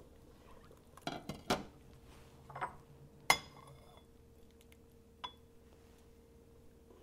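Stainless steel cookware clattering: a ladle and stockpot lid knocking and clinking against a steel pot, with a few quick clatters, then one sharp ringing clink about three seconds in, and a lighter clink a little after five seconds.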